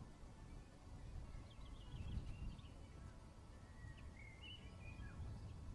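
Faint outdoor ambience: small birds chirping and twittering in short phrases, once about two seconds in and again about four seconds in, over a low steady rumble.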